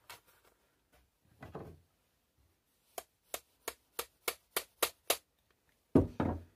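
A pin being tapped into a BSA Lightning air rifle: a run of about eight sharp taps, roughly three a second and growing louder, then a heavier thump near the end.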